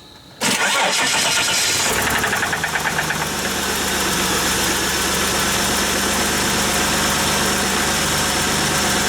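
Holden Commodore's engine cranking on the starter for about a second and a half, then catching about two seconds in and settling into a steady idle.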